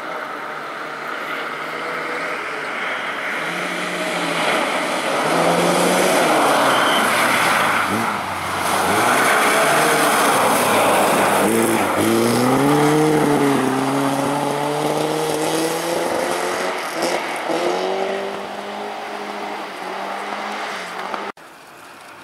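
Rally car engine at full throttle as the car approaches, passes close by with a hiss of tyres on the icy gravel, and pulls away. The engine pitch climbs, falls at a couple of quick gear changes about twelve seconds in, and climbs again. Near the end it cuts to a quieter, more distant engine.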